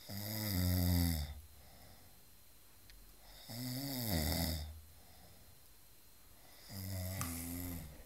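A sleeping man snoring: three long snores, each with a low buzzing pitch and lasting just over a second, about three seconds apart.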